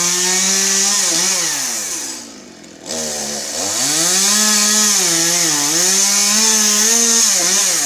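Two-stroke chainsaw cutting pine at high revs, dropping almost to idle about two seconds in, then revving back up for another cut and easing off near the end.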